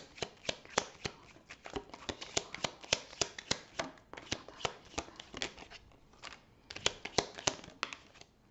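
A deck of oracle cards being shuffled by hand: a quick, uneven run of sharp card slaps and flicks, several a second, with a short pause about six seconds in.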